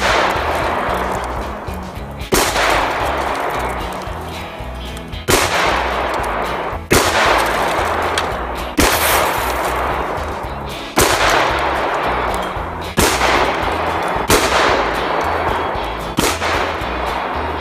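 A Remington 11-87 semi-automatic 12-gauge shotgun firing about eight shots, roughly two seconds apart. Each blast trails off slowly in a long echo.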